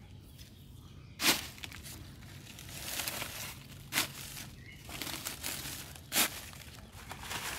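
Dry fallen leaves crackling and rustling as they are handled and a wooden stick is worked into the soil among them. Three sharp crunches stand out, the first, about a second in, the loudest.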